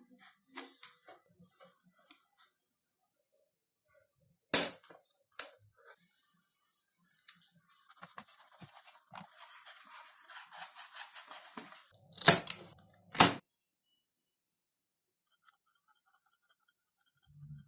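Sharp knocks and snaps of small parts being handled during a foam RC plane build, with a few seconds of scratchy rustling in the middle and a loud pair of snaps near the end.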